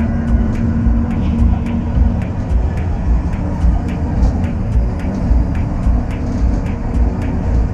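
Diesel shunting locomotive's engine running, heard from its cab, with a quick, even knocking beat over a low throb.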